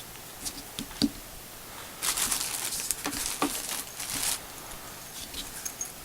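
Handling noise of a microphone and its case: a few light clicks and taps, then about two seconds of rustling and scraping, with a few soft ticks near the end.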